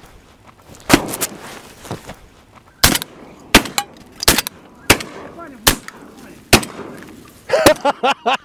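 Goose calls blown by the hunters: a string of short, sharp, loud notes, one every half second to a second, calling to white-fronted geese circling overhead. Near the end quicker pitched goose calls crowd in over them.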